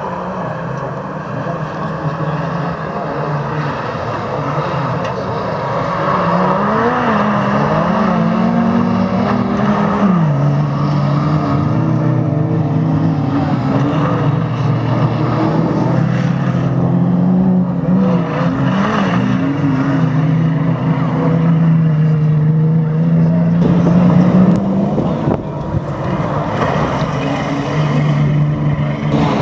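Engines of GAZ race trucks running hard around a dirt autocross track, the engine note rising as they accelerate and dropping suddenly as they ease off or change gear, with stretches of steady running between.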